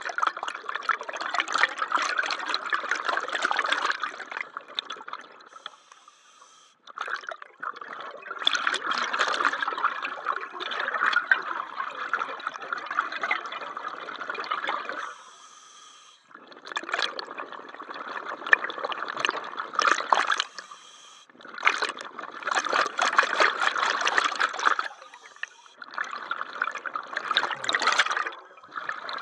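Exhaled air bubbling out of a diver's scuba regulator underwater, in bursts of a few seconds broken by short pauses for the in-breaths.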